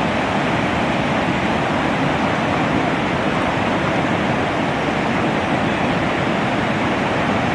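A river in flood rushing over the ground, a steady, even noise of fast-moving water with no breaks.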